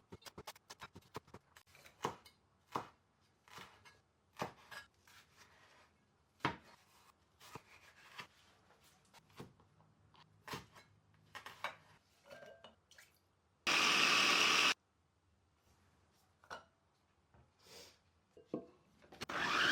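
A knife slicing an onion on a cutting board: irregular light taps and clicks. Twice, about two-thirds of the way through and again at the end, a loud hiss cuts in suddenly, lasts about a second and stops abruptly.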